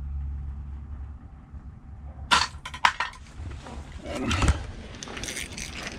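Handling noise from ice-fishing gear: two sharp clicks about half a second apart, then a thump and a run of crackling clicks over a low steady rumble.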